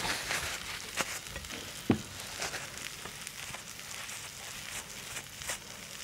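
Steady sizzling of food frying in a pan on a gas burner, with a few light clicks of utensils and dishes, the loudest about two seconds in.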